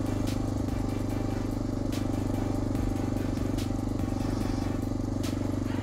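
Honda Dominator NX650's single-cylinder four-stroke engine running steadily at an even throttle, with a few sharp ticks over it.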